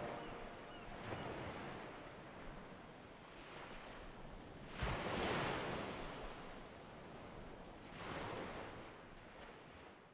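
Ocean surf breaking on the shore below a cliff, in slow swells. One comes about a second in, the loudest around five seconds in with a low thump, and another around eight seconds, before the sound dies away near the end.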